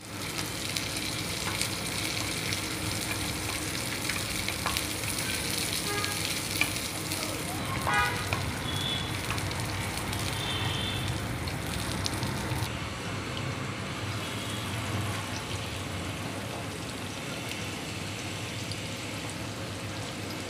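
Food sizzling in oil in a stainless steel frying pan while a spatula stirs it, with scattered clicks and scrapes of the spatula on the pan and a short squeak about eight seconds in. The sizzle turns softer and duller a little past halfway, with chopped garlic frying in the pan.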